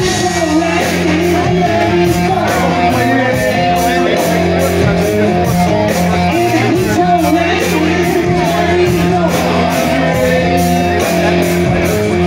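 Live rock band playing: a singer over electric guitars and drums keeping a steady beat.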